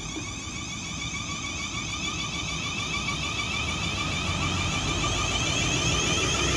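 Train approaching along the line, its rumble and a high steady whine growing gradually louder.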